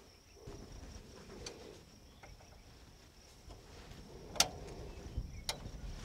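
Two sharp metal clicks about a second apart near the end, as a wrench goes onto and works the billhook tension nut of a baler knotter. Under them is a faint, steady, high-pitched hum.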